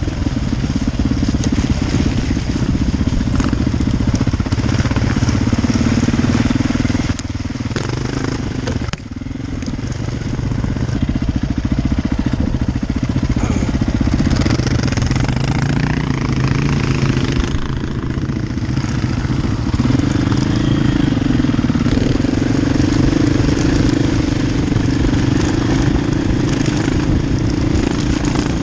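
KTM enduro motorcycle engine running under load, heard on board from the rider's helmet camera. The throttle eases off briefly about seven and again about nine seconds in, then it picks up and runs on steadily.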